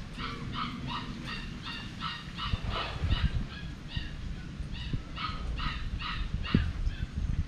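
A puppy yelping in a quick run of short, high-pitched yips, about three a second, with a brief pause a little past the middle.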